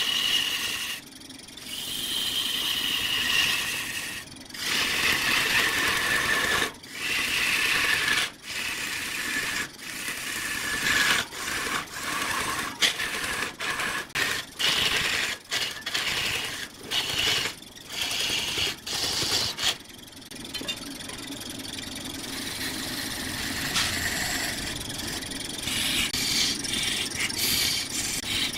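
Wood lathe running while a turning tool cuts into the spinning wood in repeated strokes. Each cut has a high whine and starts and stops with short pauses between strokes. From about two-thirds of the way in it gives way to a steadier, quieter scraping.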